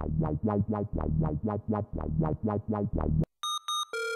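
NX-Synth ONE virtual-analog software synthesizer playing its 'NX Bad Dog BL' preset: a run of short, plucked low notes, about four a second. About three and a half seconds in it cuts to a bright, high, ringing lead patch ('NX Lord Of Ring LD') playing quick notes.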